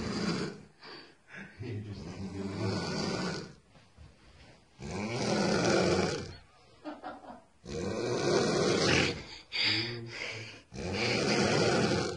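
A woman snoring loudly in her sleep: about five snores, each one to two seconds long, with short pauses for breath between them.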